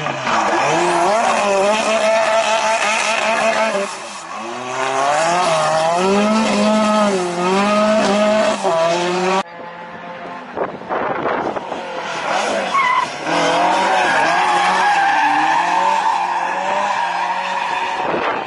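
Historic rally car engines revving hard up and down through a tarmac hairpin, with tyre squeal. The first car is a Renault 5 Turbo. The sound cuts off suddenly about nine seconds in, and a second car is then heard approaching and revving through the same bend.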